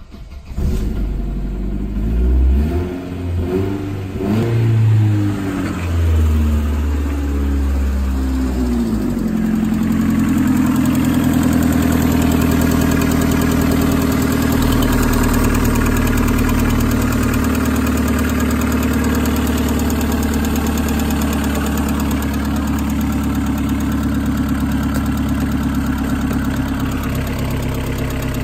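Opel Vectra B 1.6 Ecotec four-cylinder petrol engine starting up, its speed rising and falling for the first several seconds, then settling into a steady idle from about ten seconds in.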